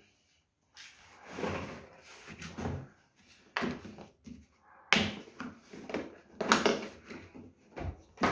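The packaging of a hammer drill being handled and opened: irregular scraping and rustling, broken by several sharp knocks and clicks in the second half.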